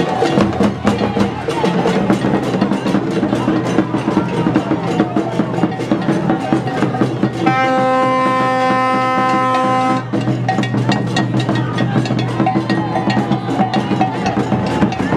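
Festival drum and percussion music, fast and dense with many sharp strikes. About halfway through, a single horn note is held for two or three seconds and then cuts off suddenly.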